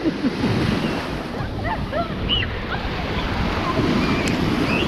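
Sea surf washing on a beach, a steady rush of waves, with wind buffeting the microphone and faint distant voices.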